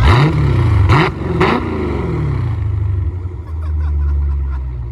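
2020 Dodge Scat Pack's 392 HEMI V8 with the mid muffler deleted, revved in three quick throttle blips, one at the start and two close together about a second in, barking on each, then dropping back to a steady idle.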